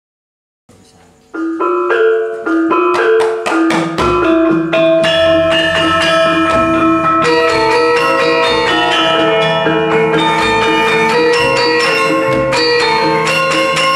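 Javanese gamelan ensemble playing a lancaran in pelog barang tuning: bronze metallophones and gongs struck in a steady rhythm of ringing notes. A few single struck notes open about a second in, and the full ensemble with deep low notes joins about four seconds in.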